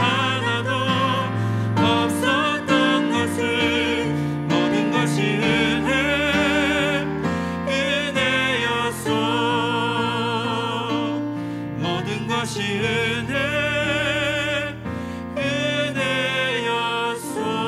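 A Korean worship song: a voice singing a slow melody with strong vibrato on the held notes, over sustained instrumental accompaniment.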